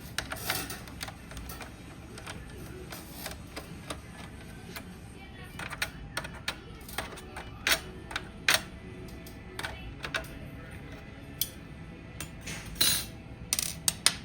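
Light, irregular clicks and taps of small screws, screwdriver and plastic casing as a PlayStation 5 is unscrewed by hand, coming more often and sharper in the second half.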